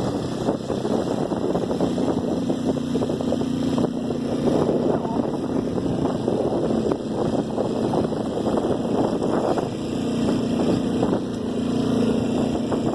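Honda Tornado 250's single-cylinder four-stroke engine running steadily under heavy load up a steep climb, carrying a rider and a passenger.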